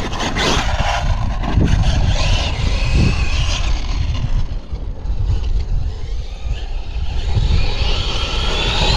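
Traxxas X-Maxx 8S electric RC monster truck being driven across a grass field, its brushless motor whining up and down in pitch as it accelerates and lets off several times, over a steady low rumble.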